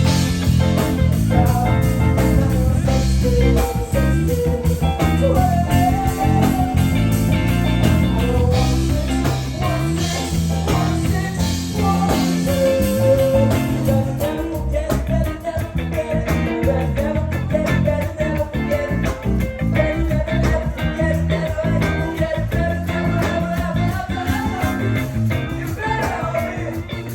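Live band playing an electric blues-rock song with guitar, bass and drums, with a melody line wavering over the top, heard through a handheld recording at the show.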